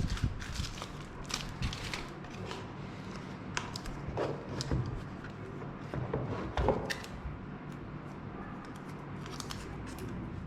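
Hands handling a smartphone and its packaging: scattered clicks, light taps and short rustles of paper or plastic, a few of them louder, about four and seven seconds in.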